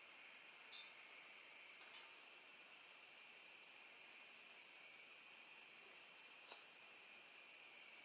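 Faint, steady chorus of crickets trilling, with a few light clicks.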